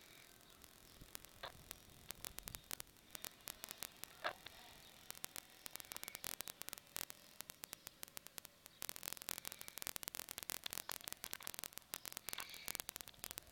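Faint crackling static: a low hiss with scattered sharp clicks that come thicker and faster from about nine seconds in, and a few brief chirps.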